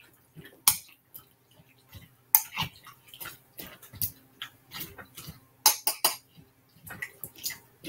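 Kitchen utensils clinking and knocking against dishes and a pot as food is stirred and handled, in irregular sharp strikes with short quiet gaps. A few louder clacks come about two and a half seconds in and again around six seconds.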